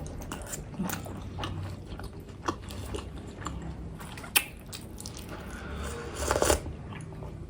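Close-miked chewing of a pork momo dumpling: soft wet mouth sounds with scattered small clicks, and a louder patch of chewing about six seconds in.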